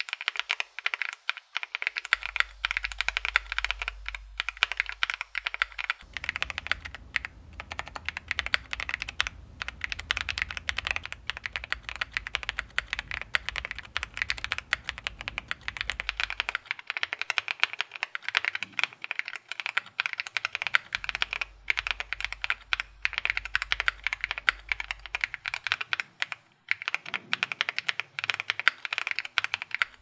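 Continuous fast typing on a Wuque Studio Mammoth 75 gasket-mounted mechanical keyboard: Wuque Onion switches (PC top housing, nylon bottom housing, POM stem) on a polycarbonate plate, under GMK doubleshot ABS keycaps. The keystrokes pause briefly near the end.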